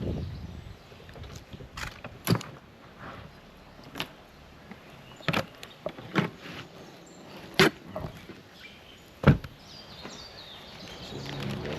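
A series of irregular sharp knocks and clunks, about eight of them spread over several seconds, the loudest about nine seconds in.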